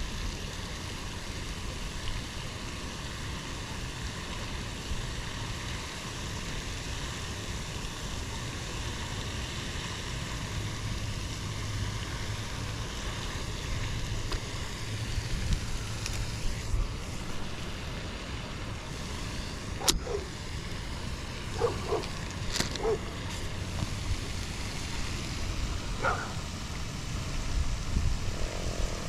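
Steady wind rumble and hiss on the microphone. In the last third come a few sharp clicks and several short chirp-like sounds.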